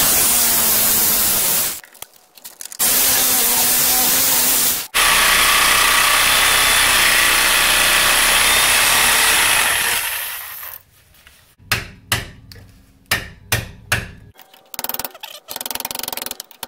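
DeWalt angle grinder cutting into the steel of a Chevy Aveo rear axle bushing in three runs, the last and longest about five seconds, winding down near the ten-second mark. Then a quick series of sharp metal-on-metal hammer blows on a bar driven against the bushing.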